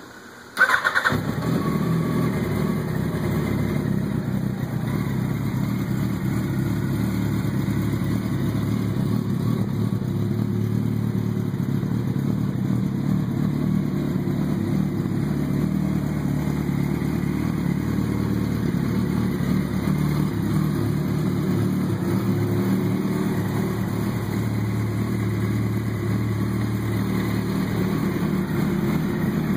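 2004 Yamaha R1's inline-four engine starting about half a second in, catching at once, then idling steadily.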